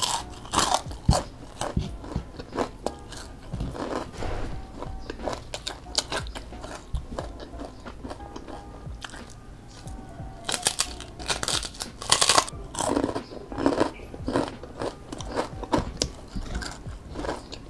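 Crisp fried tempeh being bitten and chewed close to the microphone: irregular sharp crunches throughout, densest and loudest a little past halfway. Quiet background music runs underneath.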